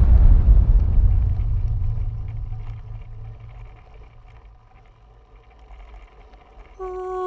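Soundtrack music: the deep rumble left over from a boom fades away over about five seconds. Near the end a new piece begins on a steady held note.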